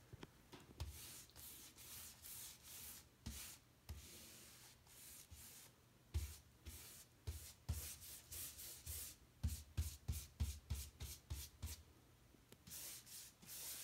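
A paintbrush stroking paint onto a kitchen cabinet: many short brushing strokes in quick runs, with some soft knocks among them.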